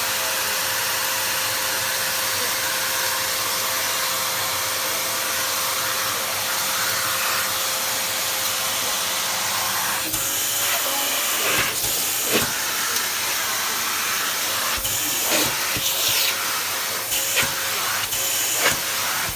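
Vacuum cleaner running steadily, with a constant hiss and a steady whine. From about halfway on there are irregular knocks and changes in its sound.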